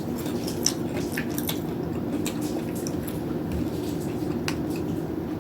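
Popcorn being chewed: scattered short, sharp crunches and crackles over a steady low hum.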